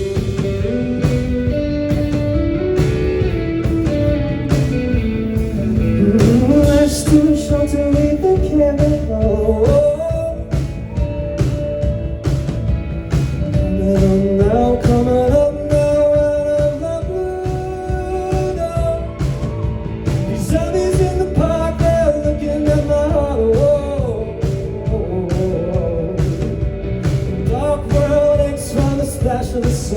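Live rock band playing a song, with a singing voice over drums and guitar.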